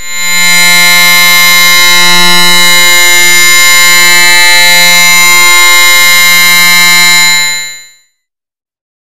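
Loud, harsh electronic buzzing tone: one steady pitch with a dense stack of overtones, held for about seven and a half seconds before it cuts off.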